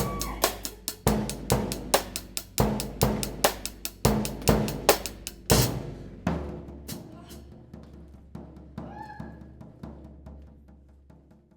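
Drum kit played in a fast repeating pattern of drum and cymbal strokes, grouped in sevens. About five and a half seconds in a loud crash ends the pattern, and it rings and fades under a few light strokes.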